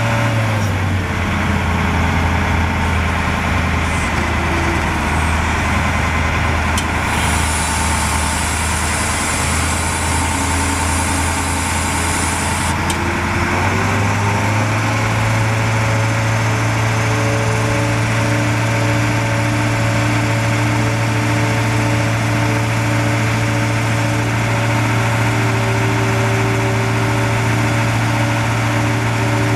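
Caterpillar 3208 V8 diesel of a digger derrick truck running steadily while the hydraulic boom is worked. Its engine speed drops about half a second in and rises again about halfway through, and there is a faint high hiss for about five seconds in between.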